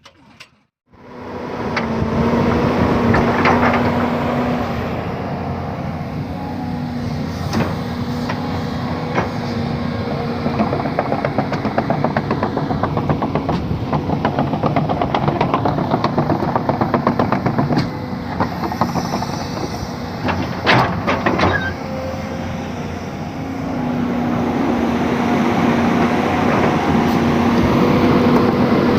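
Volvo excavator running, its engine and machinery making a steady, fast clatter that grows louder near the end.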